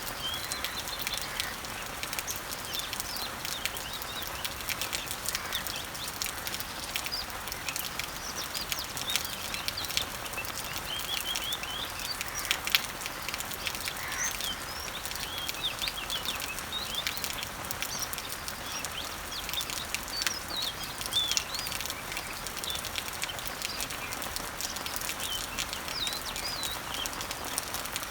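Summer rain falling on garden leaves and trees: a steady hiss dotted with many sharp drop ticks, while birds chirp and sing throughout.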